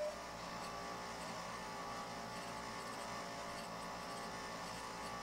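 The original squirrel-cage blower fan inside a Macintosh SE running with a steady hum, the early fan design known for being noisy.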